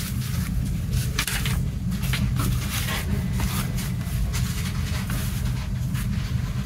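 Paper and thin card being handled and laid down on a table: scattered rustles and light taps, over a steady low rumble.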